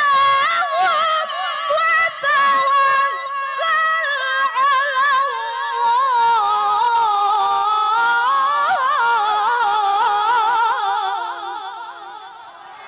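A woman reciting the Qur'an in melodic tilawah style, a single unaccompanied voice with fast ornamented trills on a long held phrase. The phrase sinks slowly in pitch and fades out near the end as the recitation closes.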